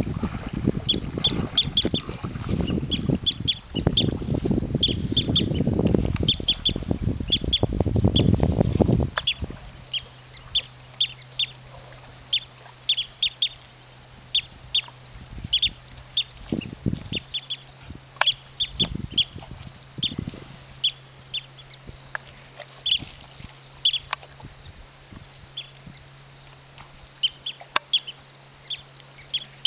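Birds calling over and over with short, high chirps, often in quick pairs, several a second. For the first nine seconds a loud low rumble covers the low end; after it stops a faint steady low hum remains, with a few dull thumps.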